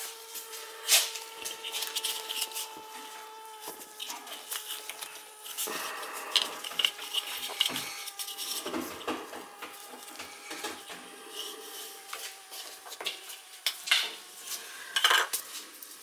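Teflon thread-seal tape being pulled off its roll and wound by gloved hands onto a threaded steel pipe nipple: an irregular run of small crinkling clicks and taps, with a few louder snaps.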